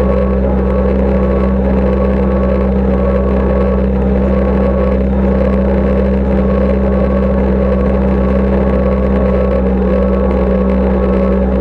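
Deutz 6206 tractor's air-cooled four-cylinder diesel running steadily at working revs, driving a Welger AP45 small square baler picking up hay.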